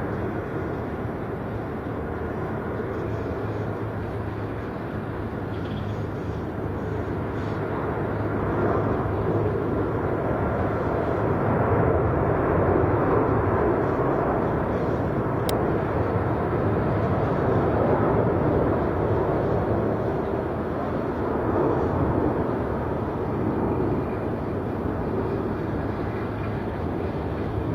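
Jet airliner engines rumbling as the plane passes, growing louder to a peak about halfway through and then slowly fading.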